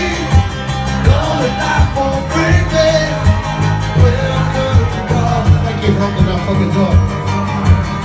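Live acoustic performance: a man singing into a microphone while strumming an acoustic guitar, over a steady low beat.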